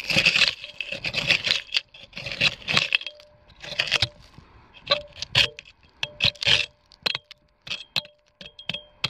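Small hand hoe with a blade and fork tines chopping and scraping into stony dump soil in repeated strokes, about one a second, with gravel and grit rattling loose.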